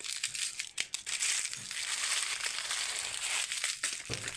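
Small foil-lined plastic coffee-powder sachets crinkling and crumpling in the hand as they are handled and emptied into a plastic jar, a dense crackle of small clicks.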